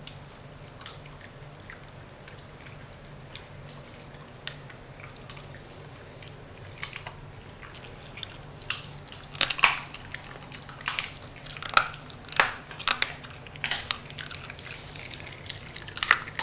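Small dog chewing and crunching raw chicken wing pieces, bone included, in short sharp cracks; a few scattered ones at first, then loud crunches come thick and fast from about halfway through, over a low steady hum.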